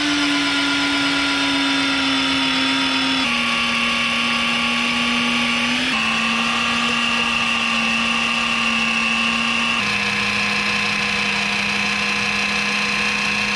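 Vevor BRM-35 magnetic drill press running an annular cutter through half-inch plate: a steady, loud motor whine under cutting load. The pitch shifts abruptly three times and ends a little lower.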